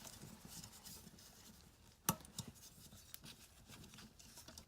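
Hands handling a motorcycle headlight's rubber dust cover and bulb: faint rubbing, with one sharp click about two seconds in and a few lighter clicks after it.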